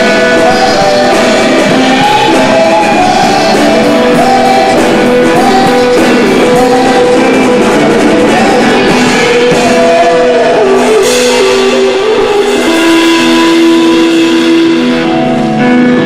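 Live rock band playing: electric guitars, bass and drum kit with a singer, sounding through a large, echoing gym. A long note is held near the end.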